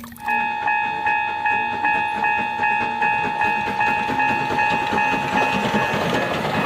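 Thomas toy train sound: a steady high whine that pulses evenly about two and a half times a second, stopping shortly before the end.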